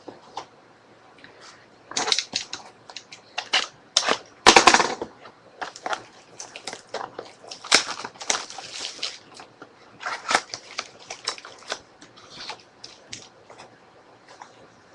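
Packaging being unwrapped by hand: irregular crinkling and rustling, with a louder tearing burst about four and a half seconds in.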